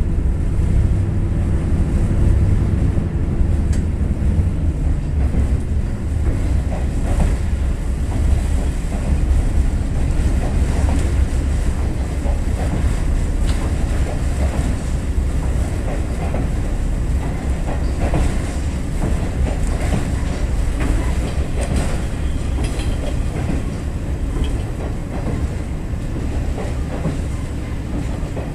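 Cabin running sound of a KiHa 28 diesel railcar: its DMH17H diesel engine running under power, a low steady drone, with the wheels clicking over rail joints. The engine's pitched note eases off a few seconds in and the sound gets a little quieter toward the end.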